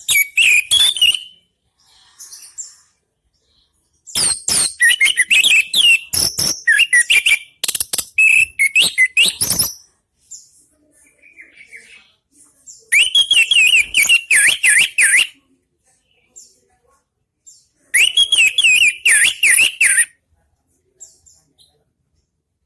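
Orange-headed thrush (anis merah) singing loudly in bouts of quick, varied phrases, four bursts of a second or a few seconds each with short pauses between.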